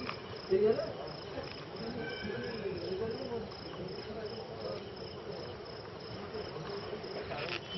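Crickets chirping in a steady, evenly repeated high-pitched pulse, a few chirps a second. A few sharp clicks come near the end.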